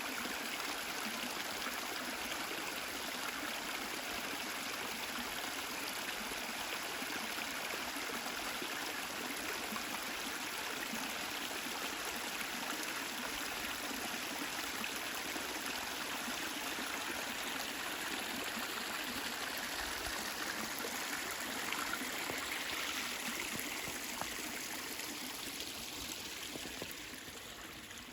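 Flowing water in a stream making a steady rushing, trickling sound, easing off a little near the end.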